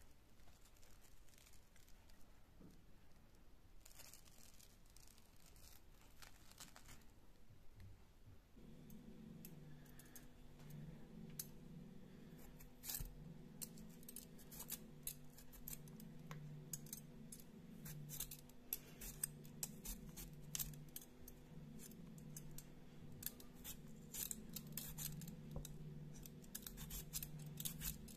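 Metal vegetable peeler scraping strips of skin off a raw potato: a run of short, crisp scrapes, sparse at first and coming thick and fast in the second half. A steady low hum starts about a third of the way in.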